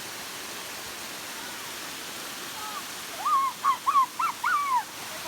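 Steady rush of a small waterfall, then about three seconds in a quick string of five short high-pitched calls, each rising and falling, louder than the water.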